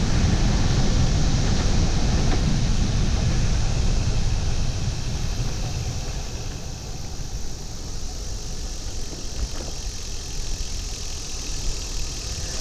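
Wind buffeting a bike-mounted camera microphone fitted with a fuzzy wind cover while coasting downhill: a loud low rumble, heaviest for the first few seconds and easing after.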